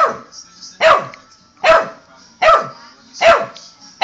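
Olde English Bulldogge puppy barking repeatedly: five barks at an even pace, a little more than one a second.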